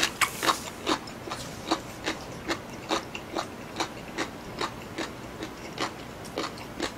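A person chewing a mouthful of food close to the microphone: a short, moist click roughly two and a half times a second, in an even rhythm.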